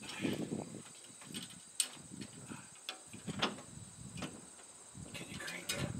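Scattered light clicks and knocks of hands and tools on metal as an engine hanging from a crane is worked into an engine bay, the sharpest about two seconds in. Insects chirp steadily behind.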